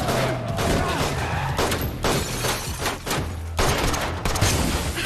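A string of pistol shots fired one after another, unevenly spaced, sharp and loud.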